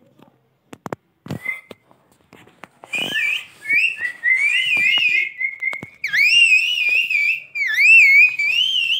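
Pet parrot whistling: a few clicks and a short chirp, then from about three seconds in a string of quick warbling whistle notes that turn into longer whistles wavering up and down.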